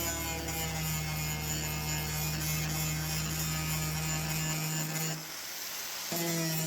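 A steady hum with several held tones, cutting out for about a second near the end and then starting again.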